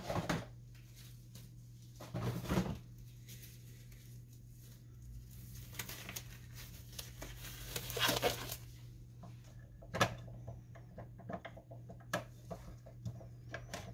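Quiet handling sounds over a steady low hum, then from about ten seconds in a quick run of small plastic clicks as gloved hands work at the printhead carriage of an Epson WF-2650 inkjet printer.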